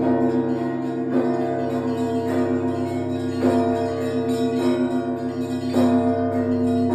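Russian Orthodox church bells of the Trinity Lavra of St. Sergius main bell tower ringing. There are strikes in a steady rhythm about once a second, six or so in all, over a long low hum from the largest bell.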